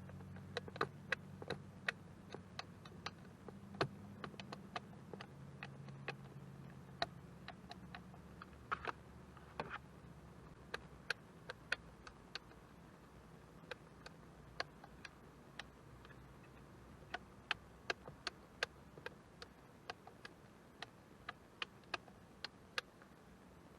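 Scattered light clicks and taps, about one or two a second and uneven, over a faint low hum that fades out about halfway through.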